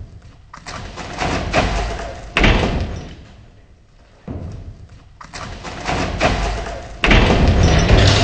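A run of heavy thumps and bangs on the steel dump-bed insert in a pickup's bed as a man moves about on it and gets down. The loudest, heaviest bang comes about seven seconds in.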